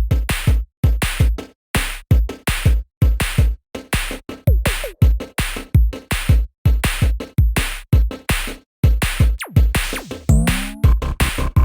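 Electronic background music driven by a punchy drum-machine beat, with a rising synth sweep near the end.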